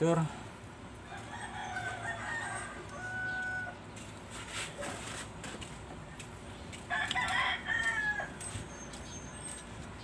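A rooster crowing twice: one crow starts a little over a second in, and a louder one comes about seven seconds in.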